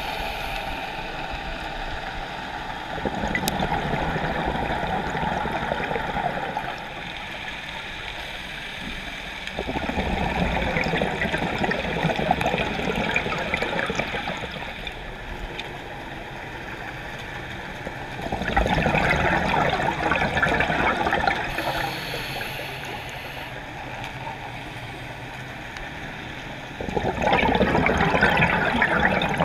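Scuba diver's exhaled bubbles from the regulator, heard underwater: four bursts of bubbling, each three to four seconds long, starting about eight seconds apart, with a quieter steady hiss between them.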